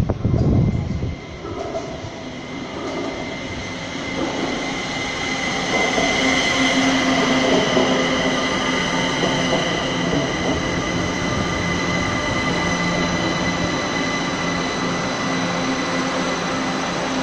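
Three-car Kaohsiung MRT electric metro train pulling into the station and slowing to a stop, getting louder from about four seconds in, with several steady high whines. It then stands at the platform with a steady low hum from its onboard equipment.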